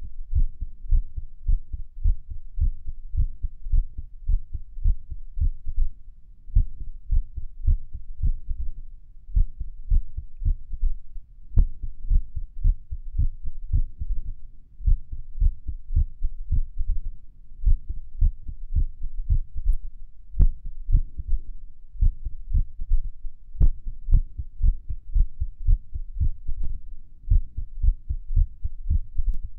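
Human heartbeat heard through the chest wall at Erb's point: a steady run of low lub-dub beats with an irregular rhythm, broken now and then by short pauses. A few sharp clicks stand out over it.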